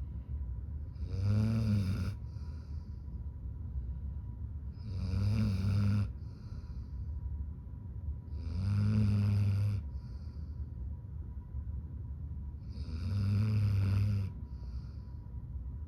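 A Labrador retriever snoring in its sleep: four slow, even snores about four seconds apart, each about a second long and followed by a short, softer breath out.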